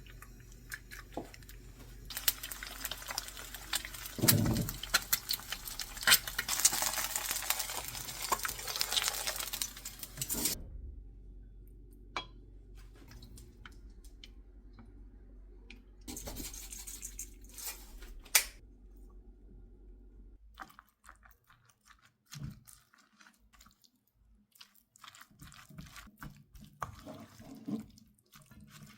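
Kitchen sounds: water runs for several seconds, then brief knocks and clinks of dishes and utensils, with another short run of water partway through.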